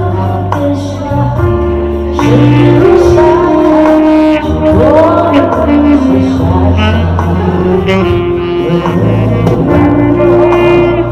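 A live band with saxophone and keyboard playing a slow, jazzy song, with long held notes over a steady bass line.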